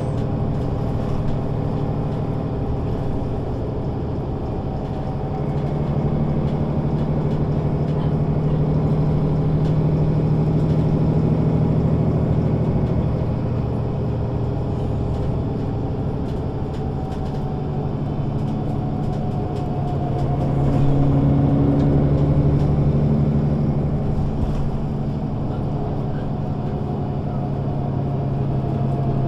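Diesel engine of a Mercedes-Benz O 530 Citaro Facelift city bus running under way. It pulls harder twice, its note rising and growing louder, then settles back in between.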